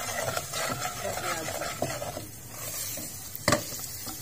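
Wooden spatula stirring and scraping around a metal pot as cumin, nigella and mustard seeds sizzle and crackle in hot oil with turmeric and ground chili, the sign the oil is hot enough for the tempering. A single sharp knock about three and a half seconds in.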